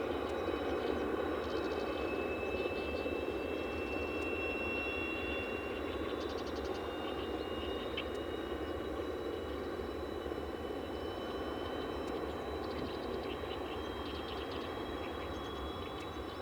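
Steady mechanical hum of aircraft or ground equipment at an airbase, with a high whine that drifts slightly in pitch. Several short bursts of wild birds twittering are heard over it.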